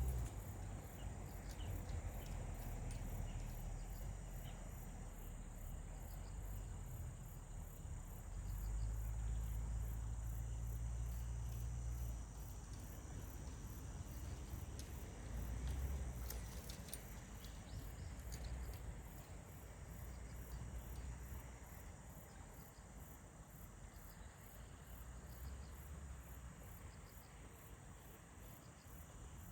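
Insects chirping in a chorus: an even rhythm of high pulses over a steady high whine. A low rumble swells and fades beneath, loudest about a third of the way in.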